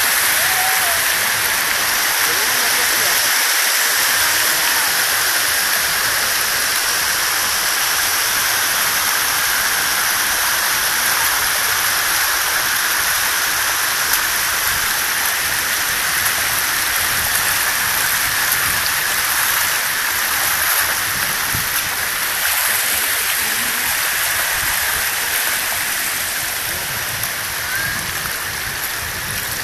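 Shallow water running steadily over travertine terraces, an even close rush that grows a little quieter near the end.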